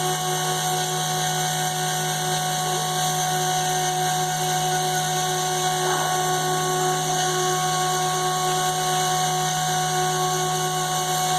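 CNC router spindle running steadily while it cuts, a constant whine over a steady hiss.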